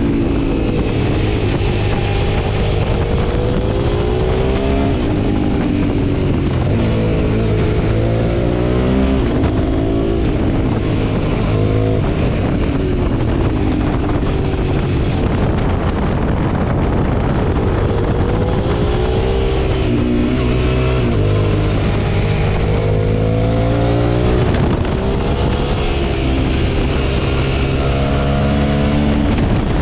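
2005 Suzuki V-Strom 650's V-twin engine under hard riding, repeatedly revving up in rising pitch and then dropping back as the throttle closes or the gears change.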